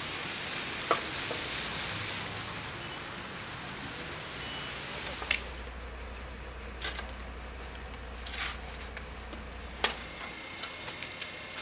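Steady hiss of rain on wet pavement, with a shovel blade striking and scraping at a clogged street drain five times and a few lighter ticks near the end, as mud and debris are dug out of it.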